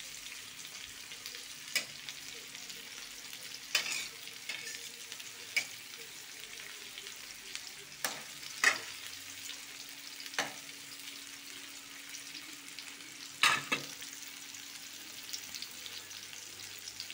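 Chopped onion, garlic and tomato sizzling in hot oil in a metal wok, sautéing toward golden brown. A metal spatula scrapes and knocks against the pan every few seconds as it is stirred, the loudest knocks about nine and thirteen seconds in.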